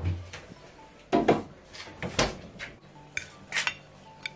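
Dishes clattering as a meal is dished up: a cooking pot and serving spoon knocking against a plate and a metal baking tray, about half a dozen separate clinks and knocks.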